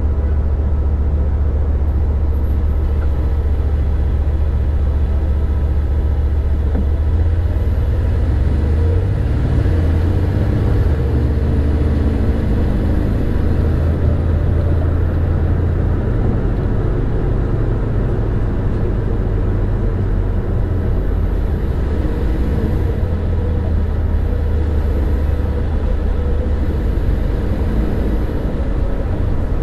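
Car driving on city streets: a steady low rumble of engine and road noise, with the engine pitch gliding up and down for a few seconds a little under halfway through.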